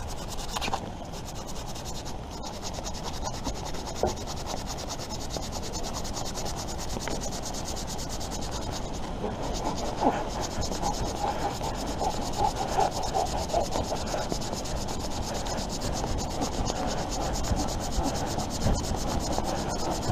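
Knife shaving and scraping wood while carving a wooden spoon.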